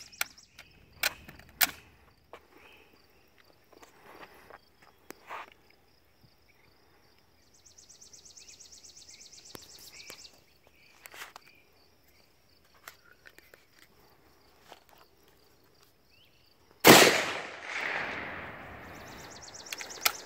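Mosin-Nagant bolt-action rifle being loaded, with scattered sharp metallic clicks of cartridges and bolt. About 17 seconds in, a single loud 7.62×54R rifle shot echoes and fades over a couple of seconds.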